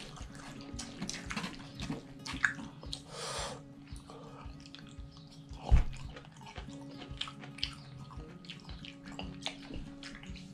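Wet eating sounds of instant ramen: noodles slurped and chewed, with small clicks of wooden chopsticks against a foam bowl. One louder thump comes about halfway through.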